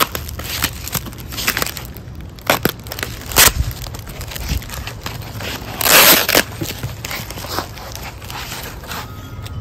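Plastic air-column cushion packaging crinkling and crackling as it is sliced open with a utility knife and pulled apart, in irregular sharp crackles with a longer, louder burst about six seconds in.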